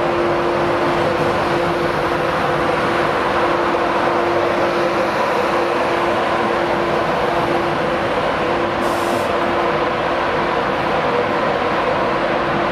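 Class 91 electric locomotive departing with its InterCity 225 coaches: a steady rush of train noise with a steady mechanical tone running through it. A short hiss comes about nine seconds in.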